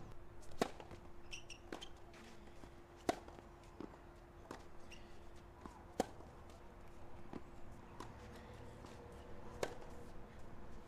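Tennis ball being played on a clay court: about ten scattered sharp knocks from ball bounces and racket strikes as a point is served and rallied, two of them louder than the rest. A faint steady hum runs underneath.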